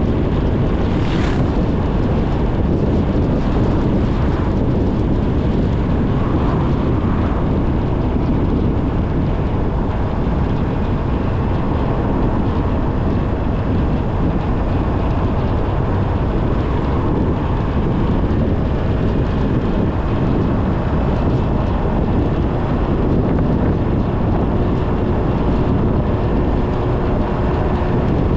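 Steady road noise of a vehicle driving along: engine, tyre and wind rumble, even throughout.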